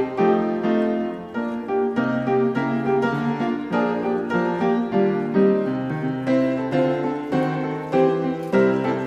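Background piano music, a melody of notes struck at an even pace.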